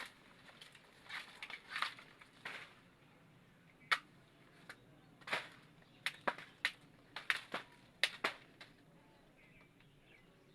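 Blade chopping into the soft, fibrous trunk of a banana tree: about a dozen sharp, irregular strikes, some with a short crunching tail.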